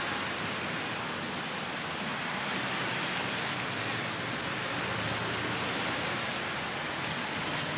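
Steady hiss of rain falling on wet pavement and street, an even wash of noise with no distinct events.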